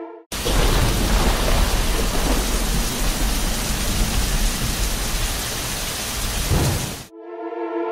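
Heavy rain with a deep rumble of thunder: a thunderstorm sound effect. It cuts in suddenly just after the start and stops abruptly about seven seconds in.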